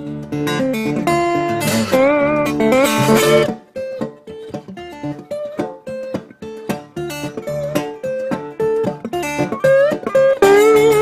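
Background music led by guitar: full, ringing chords at first, thinning to single plucked notes from about four seconds in, then building again near the end.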